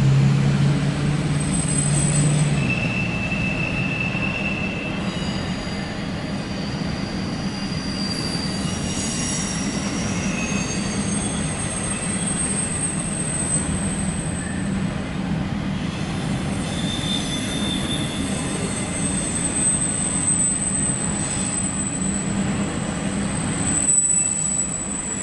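Freight train of double-stack well cars and autoracks rolling past with a steady rumble. Its wheels squeal in thin, high-pitched tones that come and go at several pitches, with a long high squeal through the second half.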